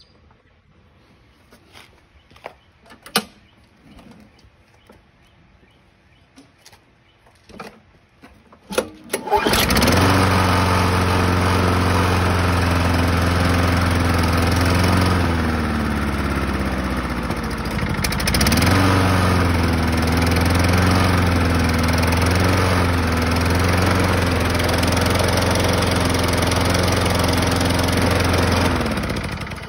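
6.5 HP Tecumseh OHV lawn mower engine being primed, with a few faint clicks, then started. It catches about nine seconds in and runs steadily on fast after its governor linkage was corrected. Its speed sags briefly a little past halfway and picks back up, and it shuts off at the very end.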